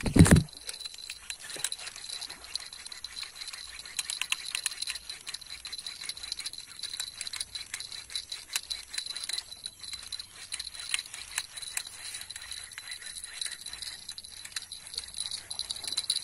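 A single thump right at the start, then scattered light clicks and rattles over a steady high-pitched tone.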